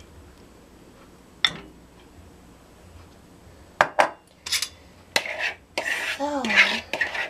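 Kitchen utensil and bowls clinking and scraping as butter sauce is scraped out of a bowl over fried chicken in a glass bowl. A few sharp clinks come first, then steady scraping and rubbing through the last couple of seconds.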